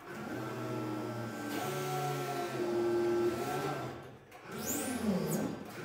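Electric motors of a Kalmar EC 2-500 electric forklift whining in several tones that step in pitch as the forks are raised and tilted. The whine stops about four seconds in, then a steeply falling whine follows near the end.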